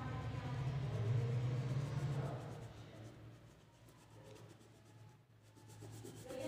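Crayon rubbing back and forth on paper as an area is coloured in. A low steady hum is heard over the first half and then fades.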